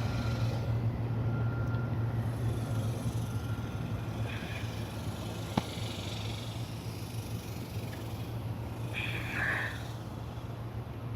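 Steady low hum of an air conditioner running, with a single sharp click about halfway through.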